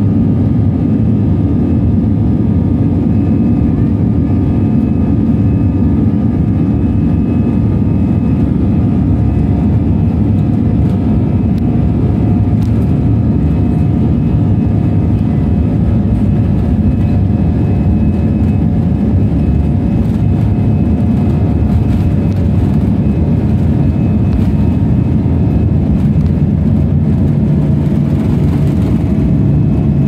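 Airliner turbofan engines at takeoff power heard from inside the cabin over the wing: a loud, steady engine sound with deep rumble through the takeoff roll and lift-off.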